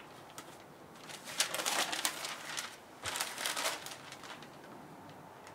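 Newspaper pages rustling and crinkling as they are handled, in two bouts, the first longer than the second.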